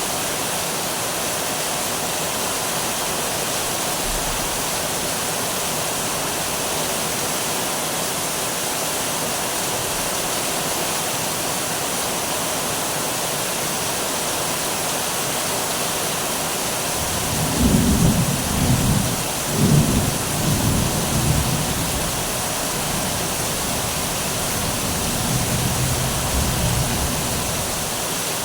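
Steady rain falling, with a low rumble of thunder rolling in about two-thirds of the way through, peaking twice, then a softer rumble near the end.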